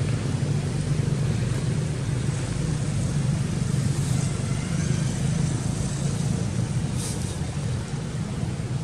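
Steady low rumble of motor traffic, even throughout with no rise or fall.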